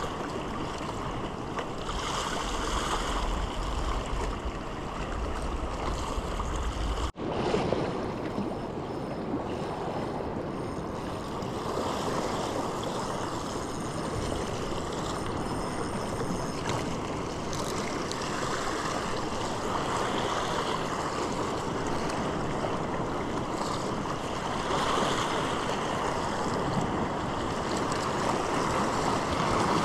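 Sea waves washing over rocks in a steady rush of surf. Wind rumbles on the microphone for the first several seconds and stops abruptly at a brief dropout about seven seconds in.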